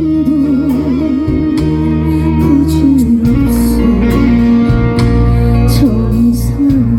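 Trot music played loud through stage speakers: a wavering lead melody with wide vibrato over a steady bass line and beat.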